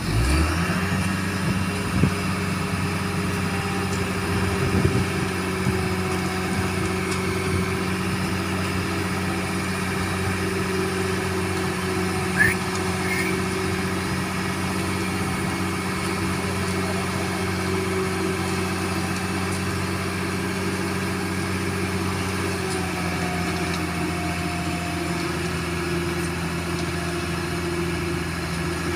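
Heavy construction-machine diesel engine picking up speed right at the start, then running at a steady raised speed with an even low hum. A short high chirp about twelve seconds in.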